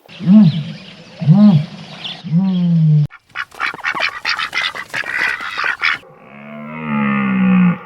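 A string of animal calls: three rising-then-falling calls, then a rapid clatter of short sounds for about three seconds, then one long drawn-out call near the end.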